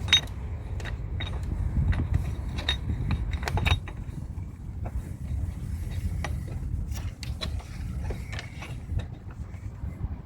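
Irregular metallic clinks and knocks of a battery hold-down bracket being handled and fitted into place, the sharpest in the first few seconds, over a steady low rumble.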